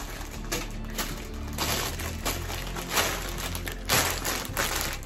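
Plastic bags of Lego pieces crinkling and rustling in a string of short bursts as they are handled, over steady background music.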